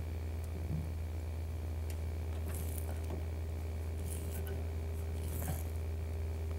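Double-sided basting tape being pulled off its roll and pressed along the edge of a car door's inner panel: a few short, soft rustles over a steady low hum.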